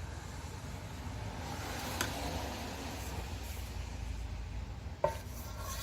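A steady low hum with a faint even hiss over it, and a light click about two seconds in and another near the end.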